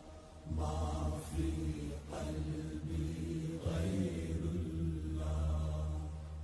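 Background devotional chanting: a voice holding long, drawn-out notes in phrases of about a second and a half each.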